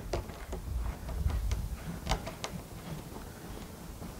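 Scattered faint clicks and creaks as a brass spigot with Teflon-taped threads is screwed by hand into the fitting of a plastic rain barrel, over a low rumble that fades during the first couple of seconds.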